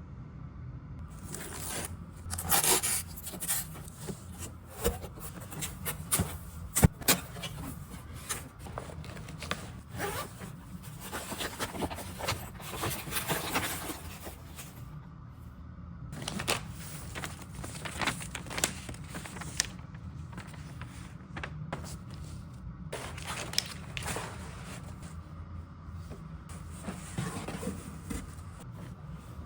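Irregular scraping, rustling and sharp clicks and knocks of things being handled and moved, with a sharp knock about seven seconds in the loudest, over a low steady hum.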